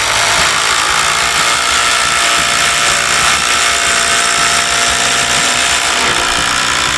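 Two Ryobi brushless cordless impact drivers hammering together at a steady pitch, set to impact mode 3, as they drive 8-inch timber screws into a wooden beam.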